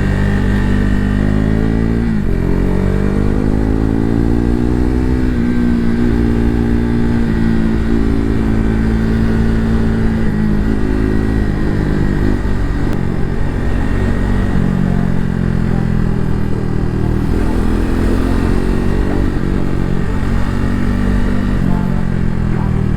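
KTM RC 390 single-cylinder engine under way, pulling through the gears. Its pitch climbs and drops at two upshifts in the first five seconds, then it cruises at a steady pitch with small rises and falls.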